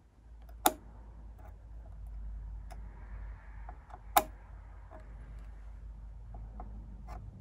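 Metal tweezers and a soldering-iron tip ticking against a surface-mount resistor on a circuit board as it is pried loose. Two sharp clicks come about three and a half seconds apart, with fainter ticks between, over a low steady hum.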